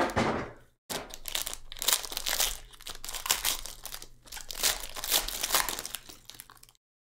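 Foil trading-card pack crinkling and tearing as it is ripped open: a sharp crinkle at the start, then from about a second in a long run of irregular crackling that stops near the end.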